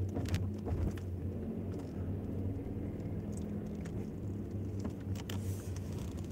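Car cabin hum: a steady low engine and road rumble heard from inside the car, with a few faint clicks and knocks.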